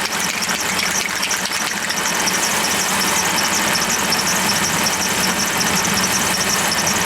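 2009 Ram 1500's engine idling steadily while it warms up to bleed air from the cooling system, with a fine high fluttering hiss over the running.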